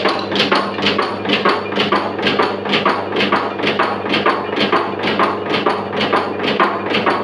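Camphor tablet press running: its punch strikes in a steady mechanical knocking rhythm, about two and a half strokes a second, over a constant low hum from the machine.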